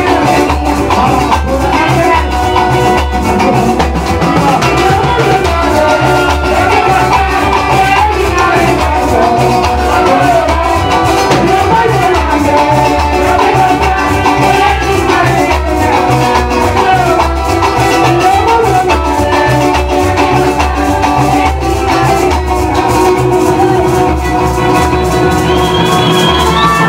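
Parang band playing live: Latin-style string and percussion music with maracas shaking over a steady bass beat.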